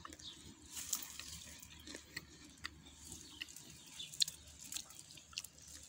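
Faint, irregular crisp crunches of someone chewing a bite of small, crunchy pear.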